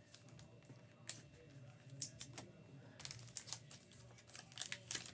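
Faint scattered clicks and taps of trading cards being handled, coming in short runs of a few a second.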